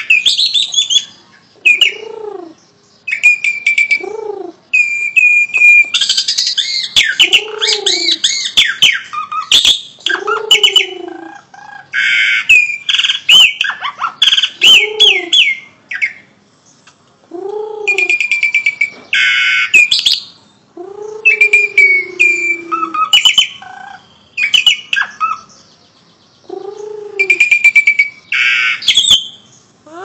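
Caged pied starling (jalak suren) singing in loud bursts with short pauses. Shrill whistled and chattering phrases are mixed with a low rising-and-falling note that recurs every couple of seconds.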